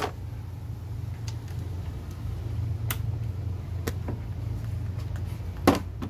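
Scattered light metallic clicks of a hand wrench and socket on bolts in a car's engine bay, with a sharper knock near the end, over a steady low hum.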